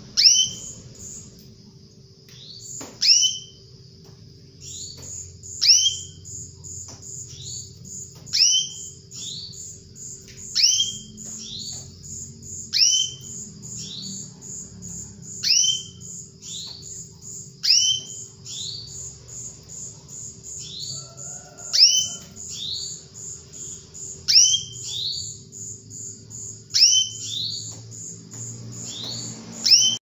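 Female domestic canary calling: a sharp, high call that slides steeply down, repeated about every two and a half seconds, about a dozen times. Between the calls runs a fast, very high trill of short notes. A steady low hum sits underneath.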